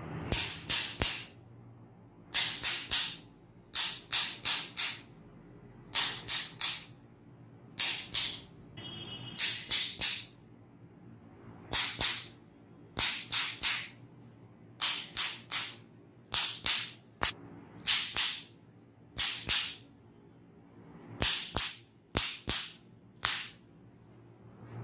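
Sharp slapping or cracking strikes in quick clusters of two to four, repeating every one to two seconds, with a brief high squeak about nine seconds in.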